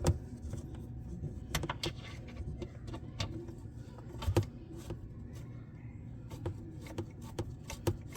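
Scattered light metallic clicks and clinks at uneven intervals as a wrench turns the 13 mm oil drain plug loose, counter-clockwise.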